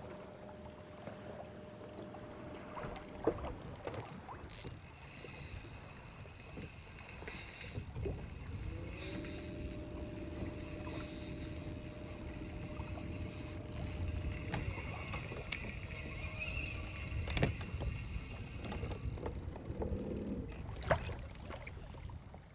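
Electric trolling motor on a bass boat running with a steady high-pitched whine, starting a few seconds in and stopping near the end, over water lapping against the hull. A few sharp knocks on the boat.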